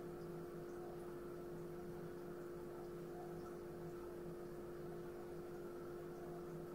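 A faint, steady hum at a constant pitch over low background hiss.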